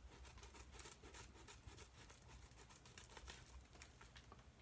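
Faint crinkling and snipping as a thin mailing envelope is cut open with scissors, a quick irregular run of small clicks and rustles.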